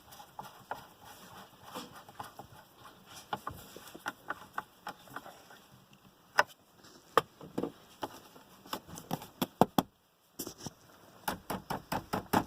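Irregular clicks and knocks of hard plastic dashboard trim and self-tapping screws being handled and screwed in, with a brief break just after ten seconds.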